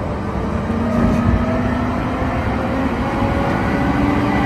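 Large Caterpillar wheel loader's diesel engine running steadily, its pitch rising a little past the middle and easing off near the end.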